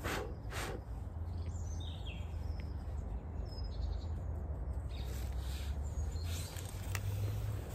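Birds chirping briefly over a steady low rumble, with a few short clicks and knocks from small stove parts being handled.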